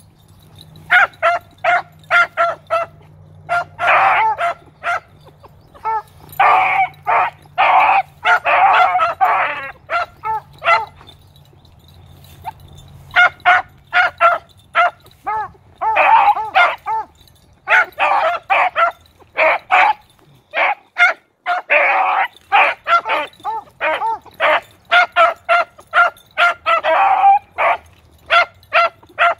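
Young beagle pups baying together on a scent track, in rapid runs of short barks with brief lulls about eleven seconds in and again about twenty seconds in.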